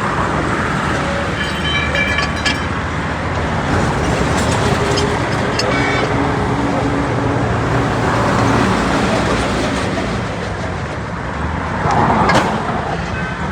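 Highway traffic passing steadily, with engine drone and tyre rush, swelling louder as a vehicle goes by about twelve seconds in.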